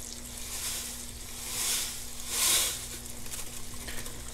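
Small fish fillets sizzling in hot butter in a frying pan, a steady hiss with a faint low hum under it. Twice, about one and a half and two and a half seconds in, a brief rush of hiss rises over it as dry couscous pours from its box into the boiling water.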